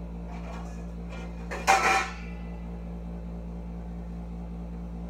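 Kitchenware handling at a counter: a few soft knocks, then a brief loud clatter with a short metallic ring at about two seconds in, over a steady low hum.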